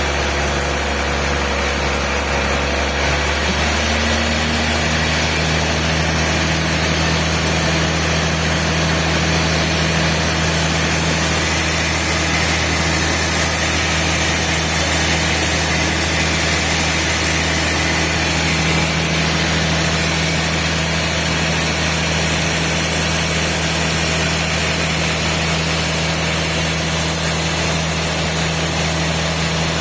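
Sawmill machinery running steadily, a continuous loud mechanical hum with a low drone, changing slightly about three seconds in.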